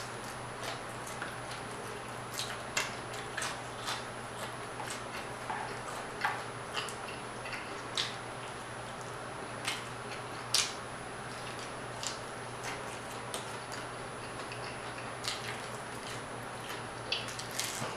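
Close-miked eating of crispy fried croaker: irregular sharp crunches and mouth clicks as the fried fish is bitten and chewed off the bone, over a steady low hum.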